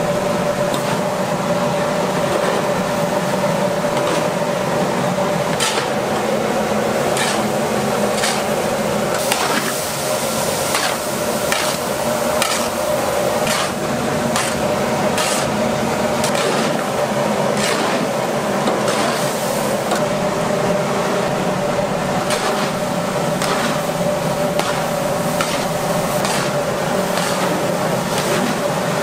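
Food-factory kitchen work: a steady machine hum with many irregular clinks and knocks, like utensils or containers being handled.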